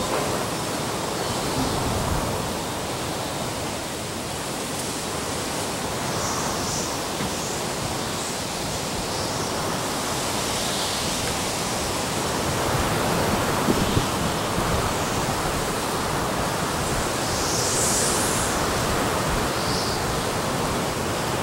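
Hurricane-force wind rushing steadily through palm trees and a screened pool enclosure, a dense, even noise that swells slightly over the second half.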